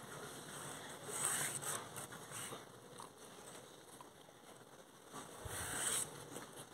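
A hand rubbing and scratching a short-haired dog's head and ears, giving a soft rustling of fur close to the microphone. There are louder scuffs about a second in and again near the end.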